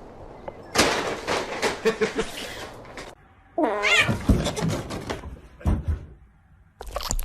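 A domestic cat meows once, a drawn-out call that rises and falls about halfway through. Before and after it come bouts of clattering, knocking noise.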